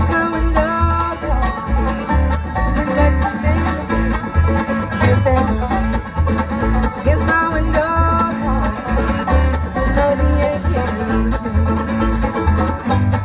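Bluegrass string band playing live: rolling banjo, strummed acoustic guitar and mandolin over an upright bass plucking a steady beat.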